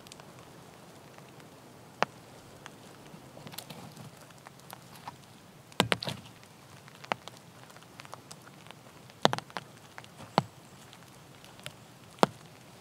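Dead wood snapping: a handful of sharp cracks as dry sticks and branches are broken, with a quick run of three snaps near the middle and single ones before and after.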